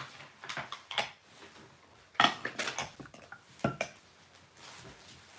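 Dishes and cutlery clinking and knocking as they are handled and set down on a table: a series of separate light knocks, the loudest about two seconds in.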